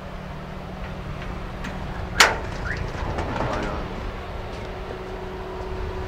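Steady low outdoor rumble with a faint hum. A single sharp knock comes about two seconds in, followed by a few faint chirps.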